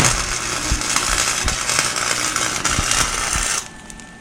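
Electric welding arc crackling and sizzling steadily on thin-walled steel handlebar tubing, with the heat turned way down because the metal keeps melting through. It runs for about three and a half seconds, then stops.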